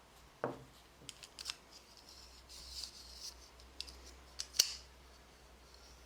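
Small hand-work sounds: a knock about half a second in, then a run of sharp snipping clicks and a short scrape, ending with one loud sharp click near the end.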